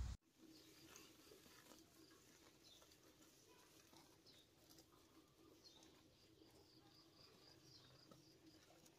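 Faint chirping of house sparrows: quick runs of short, high chirps, one near the start and a longer run past the middle, over a faint steady hum.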